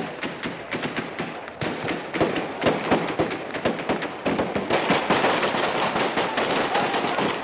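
Rapid automatic gunfire, a dense crackle of many shots a second that gets louder about halfway through.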